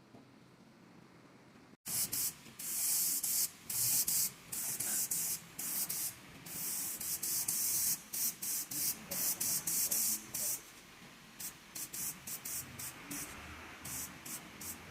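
Compressed air hissing in repeated short bursts, as from an air spray gun or blow gun being triggered on and off during body work. The bursts start about two seconds in, some brief and some held for a second or more.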